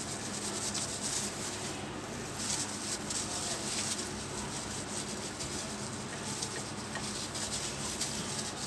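Hands rubbing a thick, wet spice marinade into raw chicken leg pieces: soft, wet rubbing with faint scattered small ticks.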